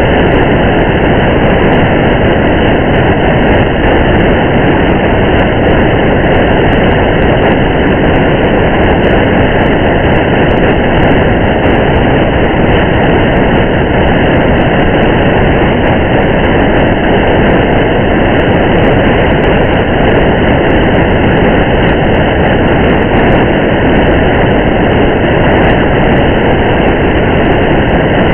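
Steady rushing noise of a car driving on a rain-soaked highway, rain and road noise blended into one unchanging wash, with faint scattered ticks.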